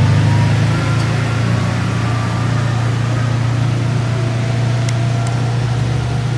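A vehicle engine idling steadily close by, a constant low hum.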